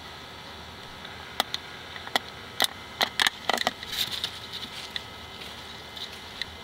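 Footsteps crunching over dry leaves and twigs while walking with a camcorder: scattered sharp clicks, a quick cluster of them about three seconds in, then a rougher crunching stretch, over a steady hiss.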